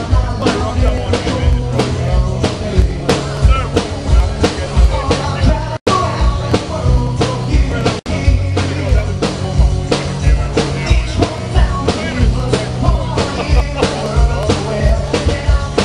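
Live rock band playing: drum kit keeping a steady beat under bass, guitar and keyboard. The sound cuts out for an instant twice, about six and eight seconds in.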